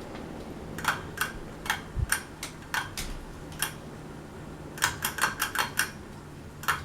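Irregular sharp clicks and taps of small hard parts being handled, with a quick run of about six clicks near the end. A dull thump about two seconds in, after which a low steady hum sets in.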